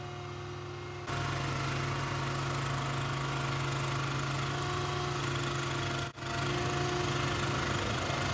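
Steady engine drone of flight-line ground equipment running at a constant speed, with a low hum and a few fixed higher tones. It gets abruptly louder about a second in and drops out for an instant about six seconds in, as the footage cuts between shots.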